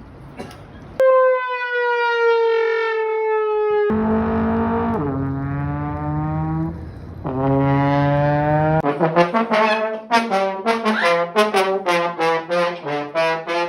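Brass-like pitched tones: a long note that sags in pitch, then lower, buzzier held notes stepping down, like a sad-trombone effect. After that comes a quick run of short staccato notes.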